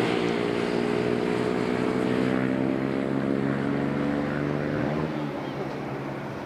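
Four Rolls-Royce Trent 900 jet engines of an ANA Airbus A380 running at takeoff thrust as it rolls down the runway, a loud roar with steady tones that slowly sink in pitch as it moves away. About five seconds in the tones bend and the sound starts to fade.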